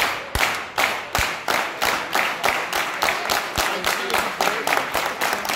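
Wrestling crowd clapping in unison, a steady beat of about four claps a second that quickens slightly, with a few low thuds among the claps.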